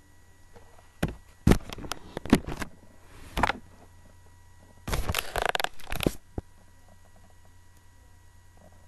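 Handling noises: a few knocks and bumps in the first few seconds, loudest about one and a half and two and a half seconds in, then about a second of rustling from about five seconds in, and quiet after.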